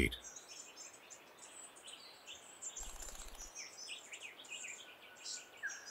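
Faint scattered chirps and calls of small birds over quiet bush ambience.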